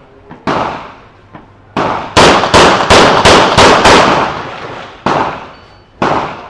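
A string of gunshots in practical shooting competition, each followed by a short echo. Two single shots come first, then a fast run of about five at roughly three a second, then two more spaced about a second apart.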